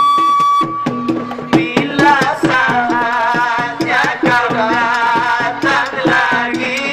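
Mandailing gondang music: a bamboo wind instrument holds a long note that stops about half a second in, then a man sings a melody over a steady, repeating drum rhythm.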